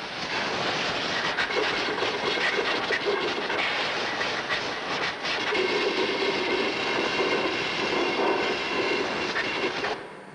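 Compressed air from an air-hose nozzle blowing through the bore of a fuel valve housing: a loud, steady hiss that cuts off suddenly near the end. It is part of cleaning and drying the parts after washing.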